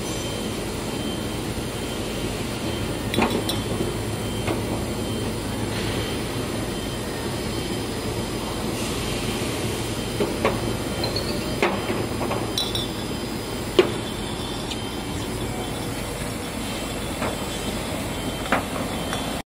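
Glass bottles being handled and set down, clinking sharply several times, the loudest clink a little past two-thirds of the way in, over a steady mechanical running noise.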